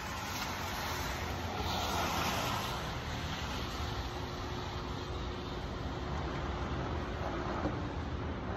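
Steady city street traffic noise: a low rumble with a hiss over it, swelling slightly about two seconds in.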